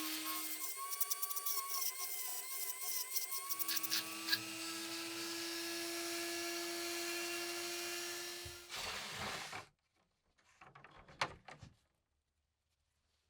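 Small high-speed power tool running with a steady whine; about a second in it bears on the work and its pitch rises and wavers under a rapid crackle of grinding contact for a couple of seconds, then it runs free again. Near the end it is switched off and spins down, followed by a few light handling knocks.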